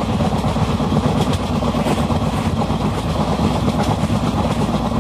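Passenger train coach running at speed on open track, heard from its open doorway: a loud, steady rumble of wheels on the rails.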